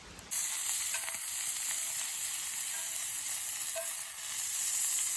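Food sizzling in a pan, a steady hiss that cuts in suddenly a moment in, with a few faint pops.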